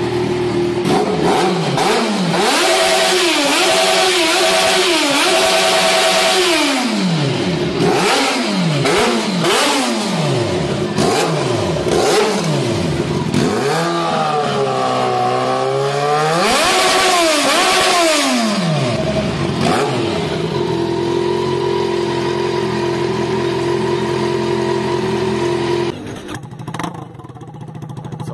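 Yamaha XJ6N's inline-four engine being revved repeatedly in short throttle blips, the pitch rising and falling several times, with a longer rev about 14 to 18 seconds in. It then settles to a steady idle. About 26 seconds in it gives way to a quieter engine sound.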